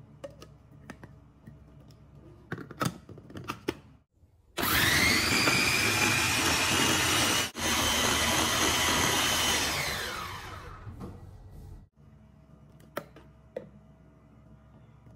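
Plastic parts click into place, then the top-mounted motor of a Turbo Fino blender starts with a rising whine and runs loud and steady for about five seconds, blending cheesecake batter. It breaks off for a moment partway through, then winds down. A few plastic clicks come near the end as the motor unit is handled.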